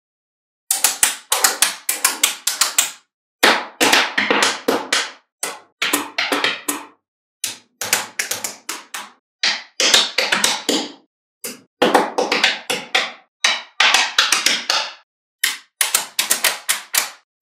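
Small magnetic balls clicking and snapping together in quick runs of sharp clicks, each run lasting a second or two, with complete silence between runs.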